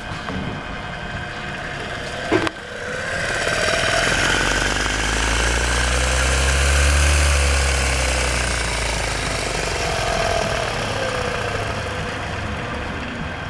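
Bonal Meta-Lax vibratory stress relief unit running, its vibrator motor's speed being changed: a sharp click about two and a half seconds in, then a whine that rises and falls in pitch over a deep rumble that swells to its loudest midway and eases off.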